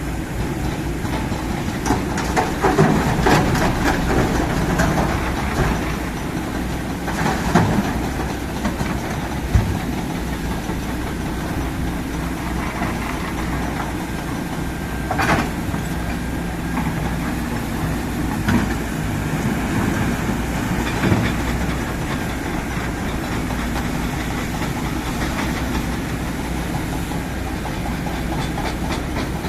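Kobelco SK200 hydraulic excavator's diesel engine running steadily, with a few short sharp knocks, the sharpest about halfway through.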